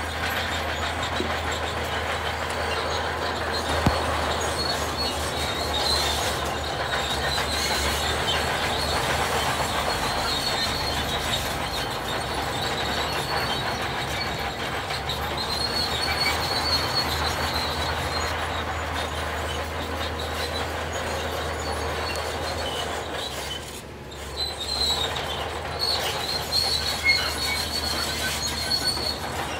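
Heavy earthmoving machinery at work: a diesel engine's steady low drone with a dense, higher-pitched mechanical noise over it. It dips briefly about four-fifths of the way through, then picks up again.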